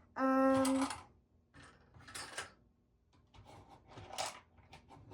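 A short, steady hummed vocal note, then quieter clicking and rattling of plastic LEGO bricks being handled and pressed into place.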